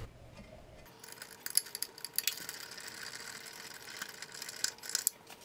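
Socket ratchet wrench clicking in irregular runs as a bolt is run down into its nut, fastening a steel impeller-kit paddle to a snow blower's impeller. The clicking starts about a second and a half in.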